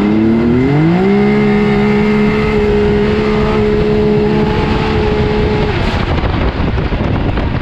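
Can-Am Maverick X3's big-turbo three-cylinder engine, heard from inside the cab under full throttle. It revs up at launch over about a second, then holds one steady high pitch for about five seconds while the CVT keeps the revs pinned, before the engine note drops out into wind and road noise. The driver feels the engine ran out of RPM, topping out around 8,800 past its power band, and thinks the clutching needs adjusting.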